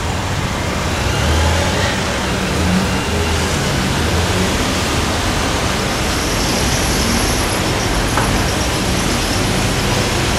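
Steady street noise: vehicle engines running with a low hum that shifts in pitch, over a constant rushing hiss.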